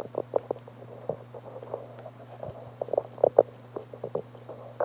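Handling noise from the camera being moved and re-zoomed: irregular soft knocks and rubs, a cluster of them about three seconds in, over a steady low hum.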